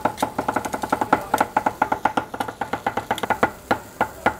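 Steel cleaver rapidly chopping grilled kokoreç (sheep intestine) on a wooden board: a quick, even run of sharp knocks, about five a second, easing off briefly near the end.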